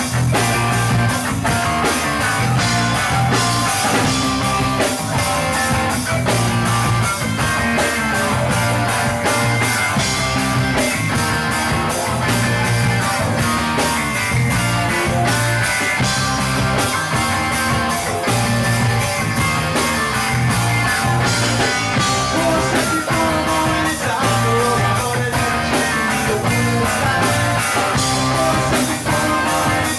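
Live rock band playing: electric guitars over a steady drum-kit beat.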